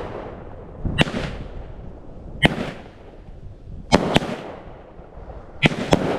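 A 12-shot consumer firework cake firing aerial shells: sharp bangs about every second and a half, the later ones in quick pairs, each trailing off.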